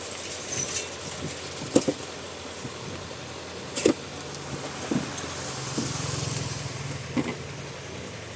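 Keyboard and its packaging being handled: a few sharp clicks and knocks, four of them loudest. A low hum swells and fades in the second half.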